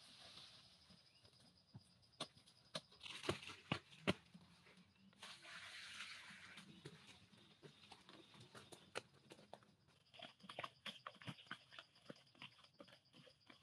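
Faint sounds of hand work in sandy soil with a hoe and bare feet: a handful of sharp knocks a few seconds in, a scraping rustle for a couple of seconds midway, then a run of small quick crunches near the end as the soil is trodden.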